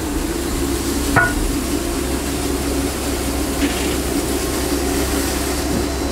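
A steady mechanical hum with a low drone, and a single sharp click about a second in.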